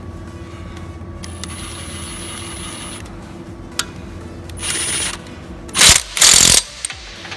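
Workshop tool noise: a thin high whine for a couple of seconds, then three short, loud hissing bursts near the end, the last two the loudest.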